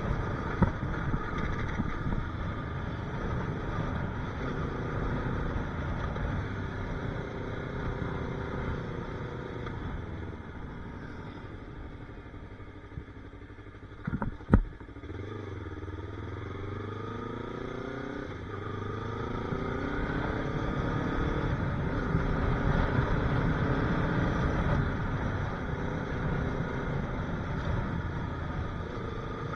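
Yamaha YZF-R3 321 cc parallel-twin engine running while the motorcycle is ridden. It eases off and quietens around the middle, gives a sharp knock about halfway through, then picks up with a rising engine note as the bike accelerates.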